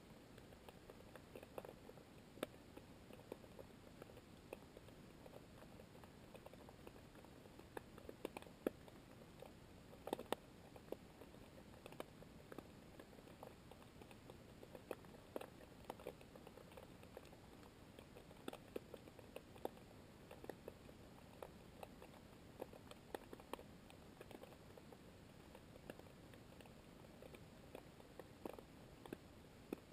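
Faint underwater sea ambience: a low steady hiss scattered with irregular small clicks and crackles.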